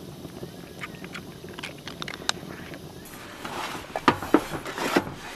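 Faint crackling of a wood stove fire. About three seconds in, louder rustling begins, with a few sharp clicks and knocks of things being handled.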